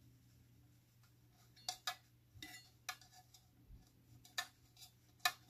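A few light, irregular clicks and taps of a hard cup being handled and tapped while glitter is worked onto a tumbler, over a faint steady hum.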